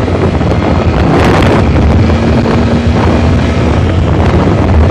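Wind buffeting the microphone of a moving motorbike, with the bike's engine running as a steady low rumble underneath. There is a brief louder rush about a second in.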